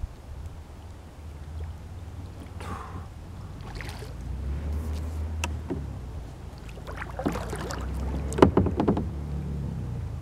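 Sounds of a small kayak on calm creek water: a low rumble throughout, with a couple of splashy swishes and then a cluster of sharp knocks and clicks about seven to nine seconds in.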